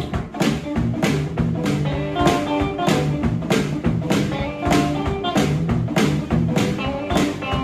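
Live blues music: a guitar playing a repeating riff over a steady drum beat, about two beats a second.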